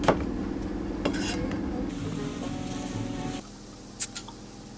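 Commercial kitchen cooking sounds: food sizzling on a hot surface with metal utensils clicking against pans. The sound drops to a quieter stretch about three and a half seconds in, where a couple of sharp clicks are heard.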